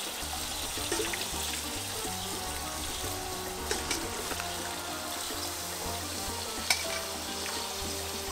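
Marinated chicken pieces sizzling steadily on a grill, with a few sharp clicks, over background music.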